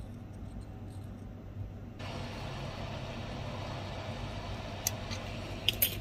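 A steady low hum, joined about two seconds in by a steady rush of blown air from the soldering bench. Near the end there are three sharp clicks, two of them close together.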